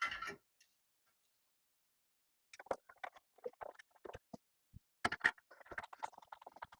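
A quick, irregular run of small clicks and taps from metal door-lock hardware being handled, starting about two and a half seconds in.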